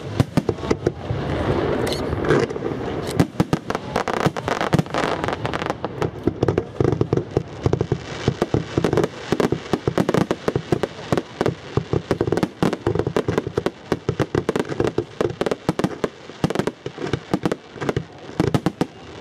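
Aerial fireworks shells bursting in quick succession: a dense, irregular string of sharp bangs, many overlapping.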